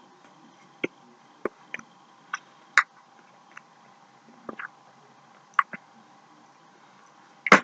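Eating sounds: a scatter of short clicks and taps, about a dozen, from a fork on a foil pan and the chewing of cheesecake, over a faint steady hum.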